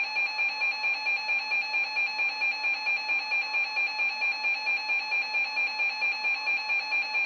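A weather radio receiver's built-in alert alarm: a loud electronic beep near 850 Hz, pulsing rapidly and evenly. It signals that a warning has been received.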